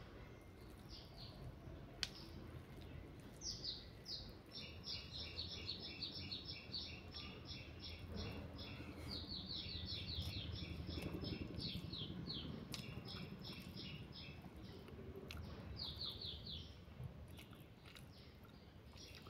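A bird chirping in long, rapid runs of short high notes, several a second, starting a few seconds in and stopping near the end. A few faint sharp clicks sit underneath.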